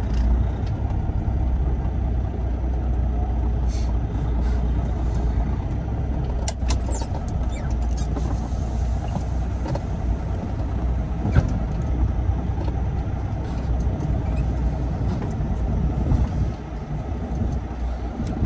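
Semi-truck diesel engine running steadily as the tractor rolls slowly across a yard, heard from inside the cab as a low hum. A few light clicks and rattles, with one sharper click about eleven seconds in.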